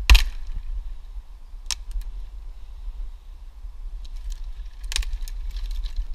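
Dry dead twigs and brush cracking and rustling as someone pushes through woodland undergrowth. There is a sharp crack at the start, a single snap a little under two seconds in, and a cluster of snaps and rustles near the end. A low rumble on the microphone sits underneath.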